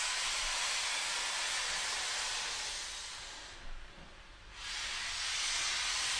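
Steam locomotive venting steam with a loud, steady hiss that dies away about three and a half seconds in, then a second blast of steam starts about a second later.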